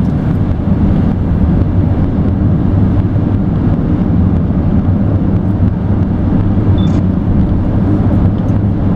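Steady road and engine noise inside a moving car's cabin at highway speed: a constant low rumble that does not change.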